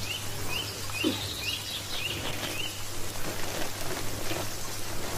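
A small bird chirping: a quick series of short rising chirps, about two a second, through the first half, then stopping. Under it runs a steady low hum and soft rustling.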